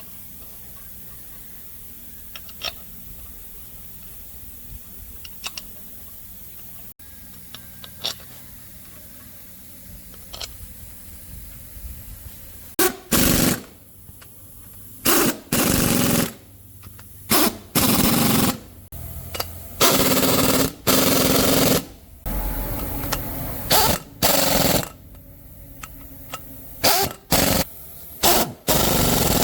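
A few faint clicks and taps of hand work at first. Then, about halfway in, a pneumatic tool run in a dozen or so short, loud bursts of half a second to a second and a half each, with brief pauses between them.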